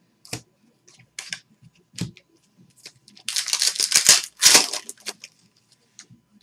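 Trading cards and their packaging handled by hand: scattered light clicks and rustles, with a louder stretch of rustling from about three to five seconds in.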